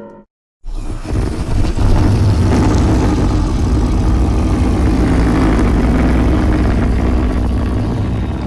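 Theropod dinosaur sound effect: a long, low, rough growl that starts about half a second in and holds steady for several seconds. The tail of a previous, higher tonal call fades out just before it.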